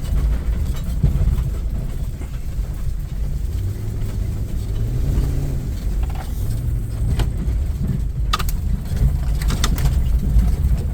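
Vehicle driving, a steady low rumble, with a few sharp knocks about seven, eight and nine and a half seconds in.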